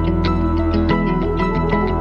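Background music with steady held notes and a regular plucked beat.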